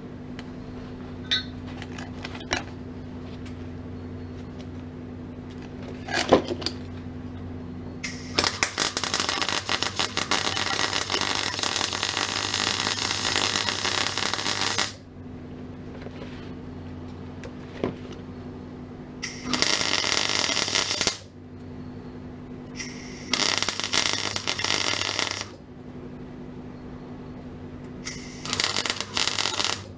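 MIG welder laying plug welds through a patch panel on a car's steel sill: four bursts of crackling, the first about six seconds long and the others one to three seconds, with a steady hum between them. A few sharp knocks come before the first burst.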